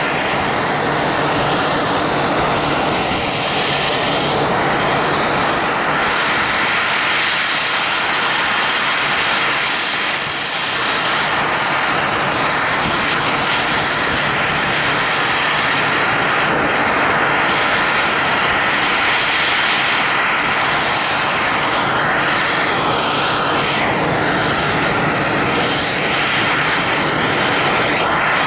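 Airbus A319-112's twin CFM56-5B turbofan engines running at taxi power: a loud, steady jet roar with a whine through it, barely changing.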